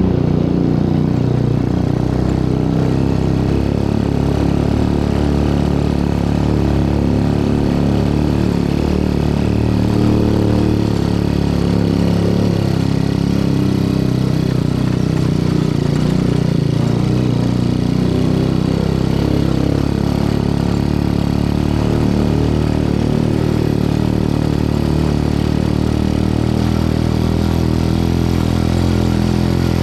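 Motorcycle engine running steadily with an even, low hum.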